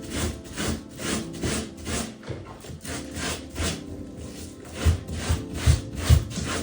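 Brush scrubbing dirty bathroom carpets (bath mats), quick back-and-forth strokes about two to three a second. A few heavier low thumps come near the end.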